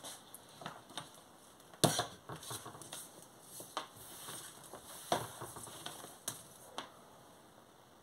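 Fabric rustling as it is smoothed and handled on a table, with scattered light knocks and clicks, the loudest about two seconds in.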